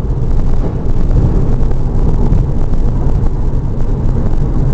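Steady low rumble of road, wind and engine noise inside a 2001 Porsche Boxster S cruising at highway speed.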